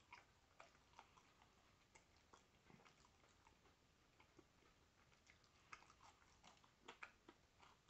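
Near silence with faint scattered clicks of a person chewing food and working it in the mouth, a few more of them near the end.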